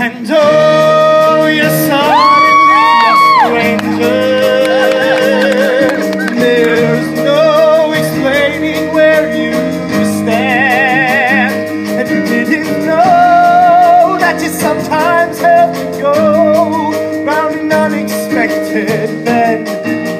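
A student vocal ensemble sings a musical-theatre number with a live band and drum kit. The singers hold long notes, and near the middle one voice sustains a note with wide vibrato.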